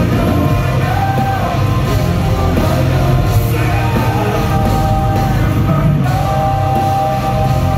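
Metal band playing live at full volume, with distorted guitars, bass and drums and a singer holding long notes, recorded on a phone's microphone from the arena stands.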